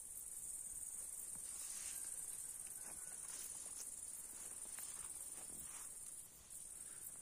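Meadow insects chirring in a steady, high-pitched drone that breaks off briefly about six seconds in, with faint soft swishes of grass brushing past in the middle.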